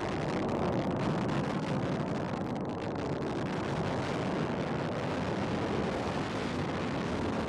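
Antares rocket's first stage, its two AJ26 kerosene–liquid-oxygen engines, firing during ascent shortly after liftoff: a steady, deep rush of exhaust noise.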